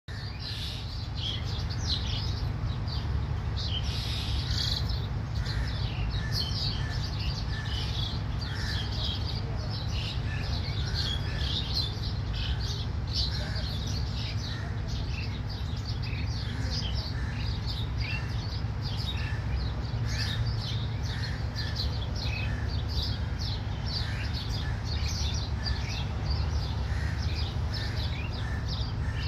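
A chorus of wild birds, many short chirps overlapping without a break, with a steady low rumble underneath.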